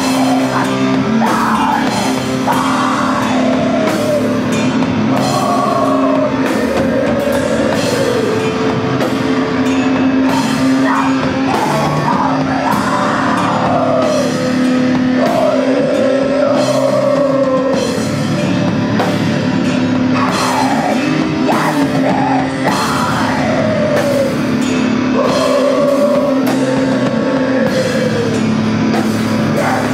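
Heavy rock band playing live: a woman sings long, gliding wailing lines over a held, droning bass and guitar chord and a slow, steady drum beat with regular cymbal hits.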